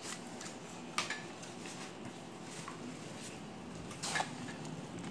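A few light clicks and knocks, the sharpest about a second in, over a low steady hum.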